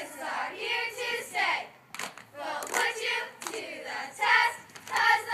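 Girls' cheerleading squad chanting a cheer in unison, in rhythmic shouted phrases, with a few sharp claps.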